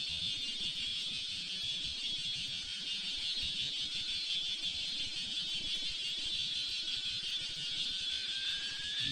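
Electric ducted fan of an FMS 70mm F/A-18 RC jet, a steady high-pitched whine that begins to rise in pitch near the end.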